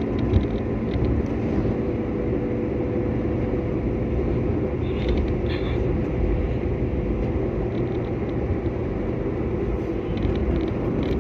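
Steady low rumble of road and engine noise inside a moving car, with a faint steady hum and a brief knock about half a second in.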